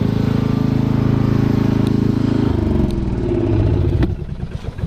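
Riding lawnmower's small gasoline engine running steadily, then falling in pitch about two and a half seconds in and dropping away near the end as it slows down, like an engine being shut off and coasting to a stop.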